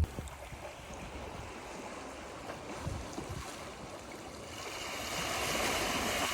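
Surf washing onto a shore: a steady wash of water noise that swells louder in the second half.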